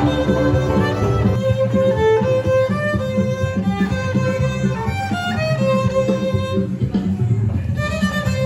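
Violin playing a melody of sustained, sliding notes, with a lower accompaniment keeping a steady beat underneath.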